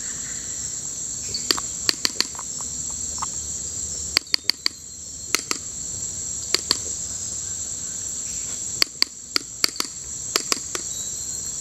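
Steady high-pitched chorus of tropical insects, with loud sharp clicks in quick runs of two to four every second or so.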